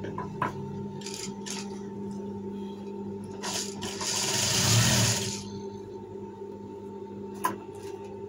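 Industrial sewing machine humming steadily with its motor running, then stitching in one short run about four seconds in that lasts just over a second. A few light clicks come from the fabric and machine being handled.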